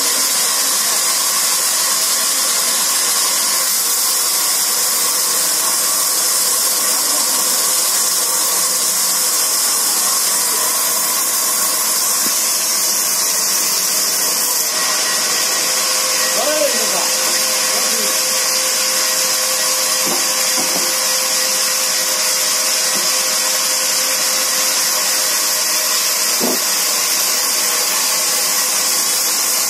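Large sawmill band saw running, its blade ripping through a log slab with a steady, high hiss. A faint steady whine joins about halfway through.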